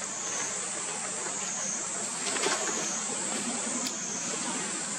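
Steady high-pitched drone of a forest insect chorus, swelling and fading every couple of seconds over a hiss, with a few faint clicks.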